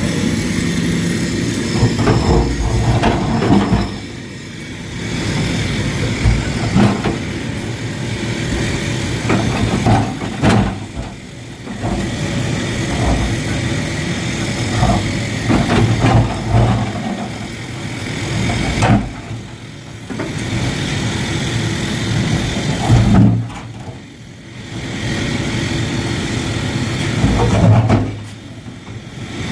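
Excavator's diesel engine working under load, running loud and easing off every several seconds, with knocks and clanks as it smashes large lumps.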